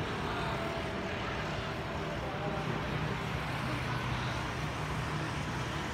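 Street traffic: motor scooters and a car passing on the road, with a low engine hum that is strongest in the middle.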